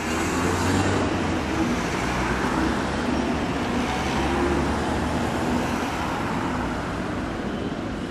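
Steady engine rumble of a Class 73 electro-diesel locomotive running on its diesel engine as the train moves slowly along a street tramway, mixed with road traffic. It is loudest about a second in and slowly fades.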